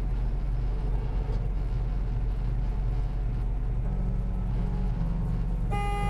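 Steady engine and road rumble of a semi truck at highway speed, heard from inside the cab. Near the end comes a short horn blast as a car cuts in close in front.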